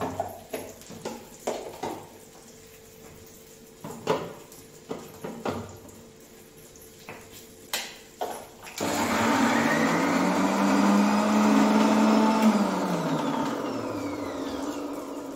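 Clatter and knocks of a mixer-grinder jar and lid being handled and set in place, then an electric mixer grinder switches on about nine seconds in, grinding tomato, onion, fresh coriander and garlic into a paste. Its motor runs loudly for a few seconds, then winds down with a falling whine near the end.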